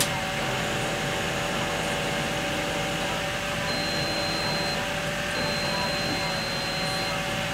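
Honda CRX del Sol's electric Transtop roof mechanism running, lowering the roof panel into the trunk lid and closing the lid: a steady motor whine and hum, with a sharp click right at the start.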